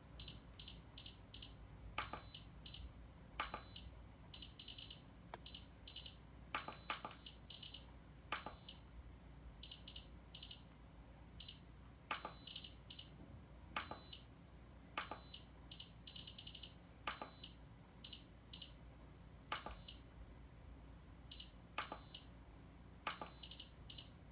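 Short high-pitched electronic beeps, sometimes single and sometimes in quick runs of two to five, at irregular intervals, with light clicks now and then.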